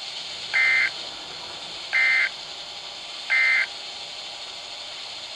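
Emergency Alert System end-of-message signal: three short bursts of warbling SAME data tones, about a second and a half apart, over the steady hiss of a weather radio receiver.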